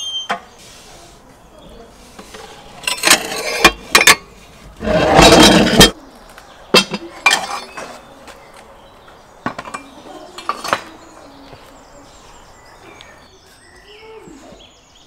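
A metal door is scraped off the opening of a brick wood-fired oven. About five seconds in comes a loud scrape lasting roughly a second, set among separate knocks and clinks of metal on brick. Near the end comes the lighter clink of a metal pot lid.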